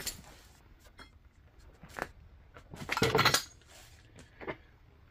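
Metal clinking and tapping as a slip-on motorcycle muffler's silencer insert is handled and pushed into the muffler, with scattered clicks and a louder cluster of ringing clinks about three seconds in.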